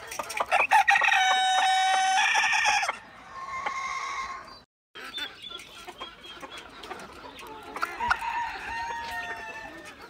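Chickens calling: a rooster crows loudly for about two seconds and a shorter, quieter call follows. Clucking from the flock follows, with another short call near the end.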